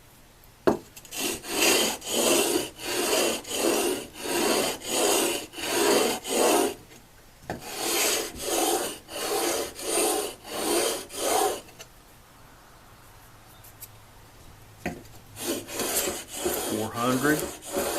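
Chisel in a wheeled honing guide rubbed back and forth on sandpaper to sharpen its bevel: an even rasping stroke almost twice a second, in three runs broken by short pauses, the longest about three seconds long past the middle.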